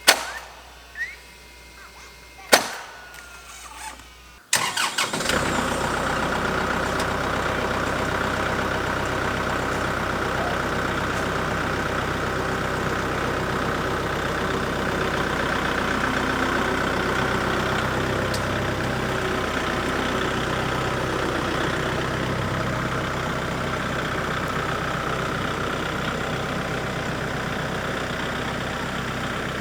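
Two sharp knocks in the first few seconds, then an engine comes in suddenly about four and a half seconds in, catching unevenly for a moment before running steadily.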